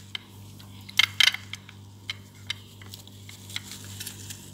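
Small clicks and rustles of a plastic toy doll being handled and tucked into a clear plastic box lined with tissue. The loudest handling noise comes about a second in, over a low steady hum.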